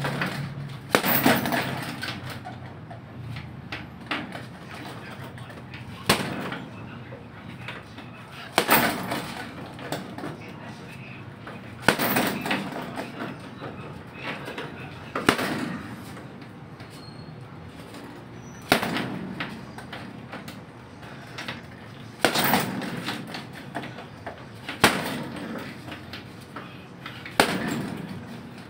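Boxing-gloved punches landing on a heavy punching bag: single sharp hits every two to four seconds, each trailing off briefly.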